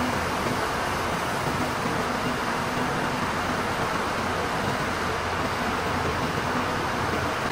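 Cotton spinning-mill machinery running: a steady, even machine noise with a faint hum in it and no breaks or changes.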